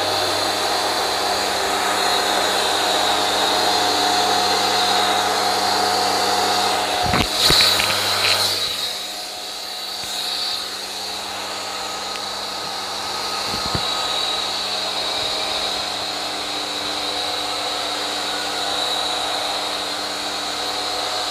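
Bosch Easy Aquatak 120 pressure washer switched on, its electric motor and pump running with a steady hum and whine while water is drawn in to prime it. A few sharp clicks come about seven seconds in, after which the low hum drops away and it runs quieter.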